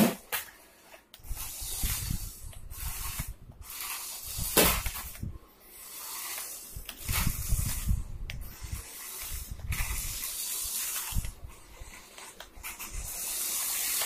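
Small electric drive motor and gears of a toy RC car whirring in short runs as it drives across a stone floor, cutting out briefly every few seconds as the throttle is let off, with one sharp knock about four and a half seconds in.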